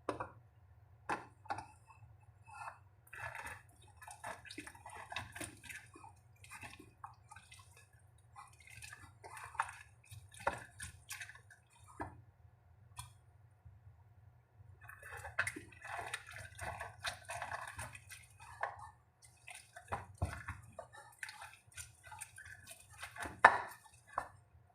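Water dripping and sloshing among irregular taps, clicks and clinks of hands handling things, with one sharper knock near the end.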